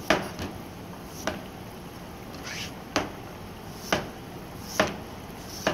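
Chef's knife slicing a peeled potato and knocking on a plastic cutting board, a sharp knock every second or so, with one softer scrape midway.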